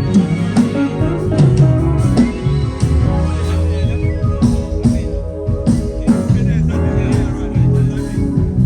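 Live band playing an instrumental groove during a sound check: guitar lines over bass, with regular drum hits throughout.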